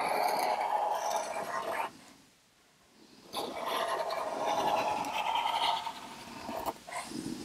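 Permanent marker drawing lines across the acrylic-painted tray surface: two long strokes with a pause of about a second and a half between them.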